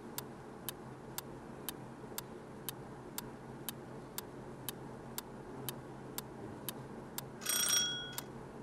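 Quiz countdown-timer sound effect: a clock ticking evenly, about two ticks a second, ending near the end with a short, louder ringing chime as the timer runs out.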